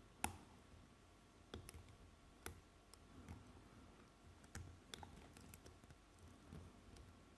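Faint, irregular clicks of a lock pick and tension tool working the spool pins inside a padlock, about a dozen light ticks while the picker feels for counter-rotation.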